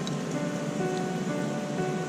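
Background music of held notes over a steady hiss.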